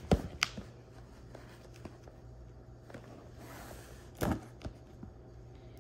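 Cardboard box being handled while its sides are opened: a sharp knock at the start, a lighter tap just after, and a duller thump about four seconds in, with quiet handling between.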